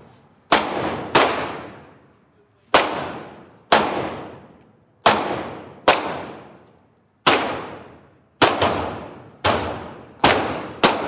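Pistol shots at an indoor shooting range, about a dozen single shots roughly a second apart, with a quick pair about eight and a half seconds in. Each shot echoes for over a second off the range's walls.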